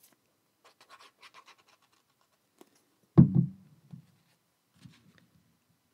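Paper card panels rustling and scraping lightly as a panel is handled and positioned, with one sharp low thump about three seconds in, like an object being set down on the desk.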